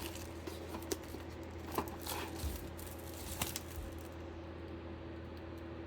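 Faint handling of a cardboard trading-card box and its packaging: a few light taps and rustles over the first few seconds, then only a steady low hum.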